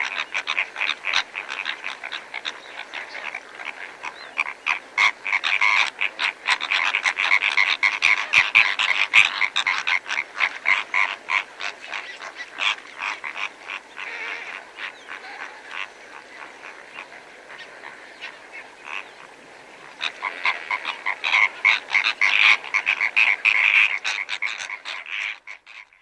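Several greater flamingos calling at close range while feeding: a dense, continuous chatter of short honking calls. The chatter thins out around the middle, swells again for the last few seconds, then cuts off suddenly.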